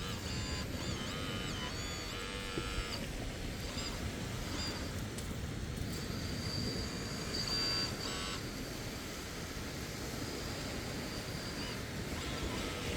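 Kabolite K961 radio-controlled hydraulic excavator's pump whining in bursts that step up and down in pitch, with a thin steady whine between them, over a steady rushing noise.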